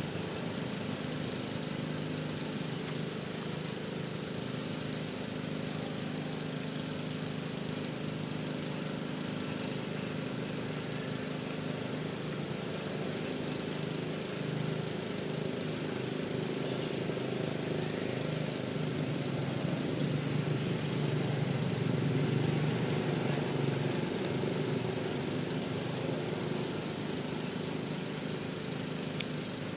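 A small engine running steadily, a continuous droning hum that grows a little louder about twenty seconds in.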